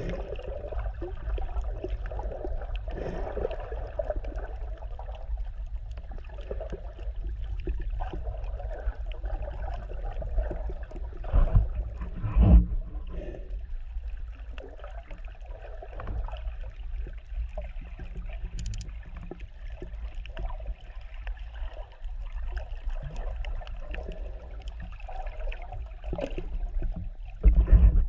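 Underwater ambience heard through a GoPro's waterproof housing: a steady muffled low rumble with swishing water movement as the camera is moved. A few dull thumps stand out, two close together midway and one near the end.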